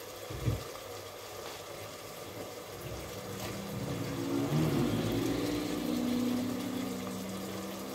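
A low droning hum made of several steady tones swells up from about three seconds in and eases off near the end, over soft handling sounds at a kitchen hob. There is a soft low thump near the start.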